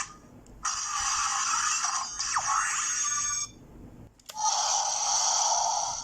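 Tinny electronic sound effects from a Gaia Memory toy's small speaker: one burst of about three seconds, then a brief pause, then a second burst that starts about four seconds in.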